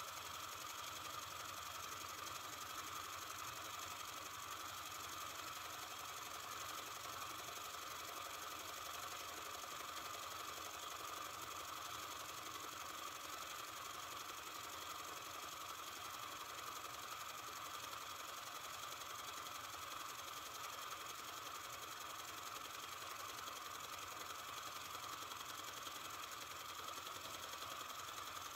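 Small Sterno-fired Robert Fulton Line vertical oscillating steam engine running steadily under steam, a fast, even mechanical clatter.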